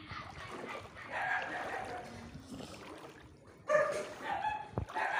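A dog barking and yipping in two bouts, the second louder.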